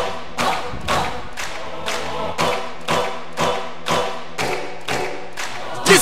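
Background music: a steady beat about twice a second under held chords, with the full, louder track coming in at the very end.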